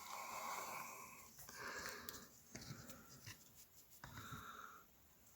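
A person breathing close to the microphone, three soft breaths, with a few faint clicks of the camera being handled.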